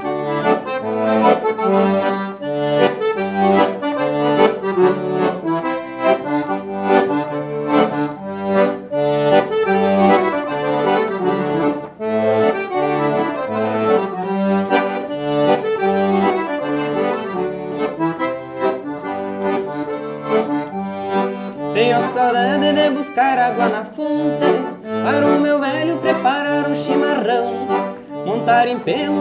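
Piano accordion playing a traditional gaúcho tune: a right-hand melody over steady alternating bass notes from the left-hand buttons. A young man's singing voice joins in about three quarters of the way through.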